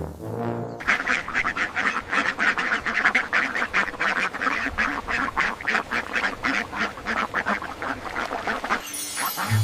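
Ducks quacking in a rapid, continuous run of short calls, about five or six a second, starting about a second in.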